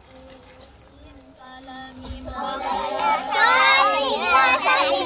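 A group of children singing together, faint at first and swelling loud about three seconds in.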